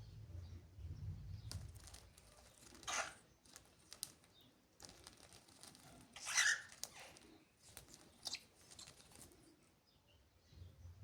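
Cockatiels moving about, making scattered short rustles and scrapes with wing flutters; the loudest comes about six and a half seconds in. A low hum runs through the first second and a half.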